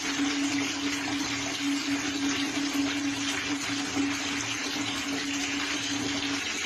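Tap water pouring in a steady stream from a pipe into a plastic basin, with a steady hum underneath that stops shortly before the end.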